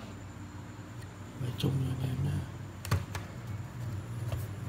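Handling noise from a hand and phone moving against a Bose 301 Series IV speaker cabinet, with a sharp knock about three seconds in and a lighter click near the end. A steady low hum sits underneath.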